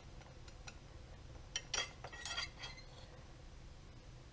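Steel and friction clutch plates clinking against each other and the clutch basket as they are handled and fitted: a few clinks clustered about halfway through.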